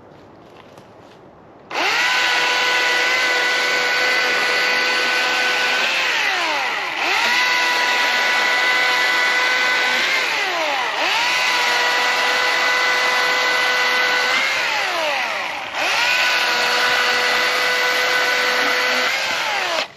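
Two-stroke chainsaw running at high revs, cutting into wood. Its engine note sags and recovers three times. It comes in suddenly about two seconds in and stops abruptly near the end.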